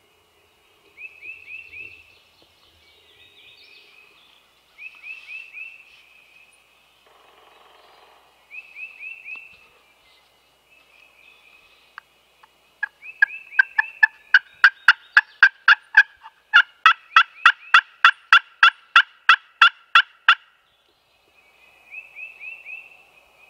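Wild turkeys calling at dawn: short, distant gobbles every few seconds. About halfway through comes a much louder, evenly spaced series of turkey yelps, about three a second, lasting some eight seconds.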